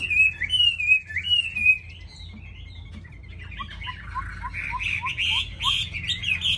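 Caged Chinese hwamei singing: loud, repeated down-slurred whistled phrases, a quieter spell about two seconds in, then fast, dense warbling that builds toward the end over a run of short, lower rising notes.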